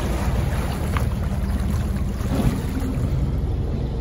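Arvor fishing boat's Mercruiser diesel engine running steadily as the boat manoeuvres away from its berth, with propeller wash churning the water.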